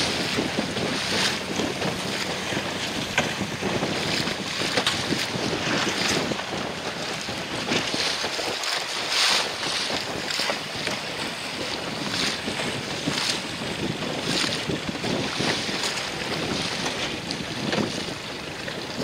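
Wind buffeting the microphone over a choppy sea, with water splashing and slapping every second or so.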